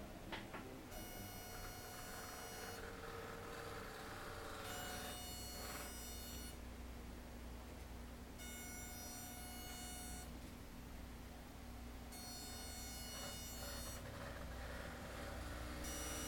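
Plasma-tube electromagnetic therapy machine running: a buzzing electronic tone pulses on and off about every two seconds, in step with its frequency pulses. A low electrical hum sits under it from about five seconds in.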